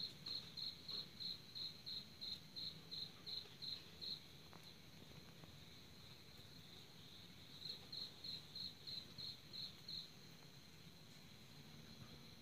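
A cricket chirping faintly: evenly spaced high chirps, about three a second, in one run of about four seconds at the start and a second, shorter run past the middle, over a faint low background hum.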